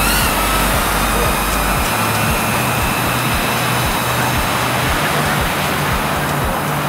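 Small BetaFPV Aquila16 FPV quadcopter's propellers whining in flight, the whine wavering and fading in the first second. A steady rushing noise follows.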